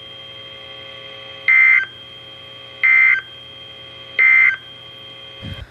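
Emergency Alert System end-of-message data bursts from a NOAA Weather Radio broadcast: three short, loud, buzzy two-tone bursts about a second and a half apart, marking the end of the warning. A faint steady electronic hum from the receiver runs underneath.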